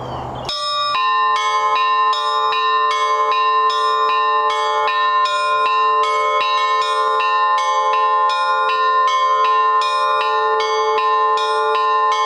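Russian church bells ringing a fast, even pattern on the middle bells, in the Trinity-Sergius Lavra style, at about three strokes a second. The strikes start about half a second in, and the bells' ring hangs on beneath them.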